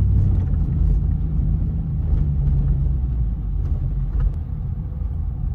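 Hummer H2 driving slowly: a steady low rumble of engine and road noise, easing slightly toward the end.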